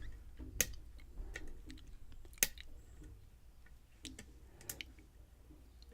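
Lock pick and tension wrench working the pins of a Schlage pin-tumbler lock held in a false set: scattered faint clicks and ticks, the sharpest about two and a half seconds in.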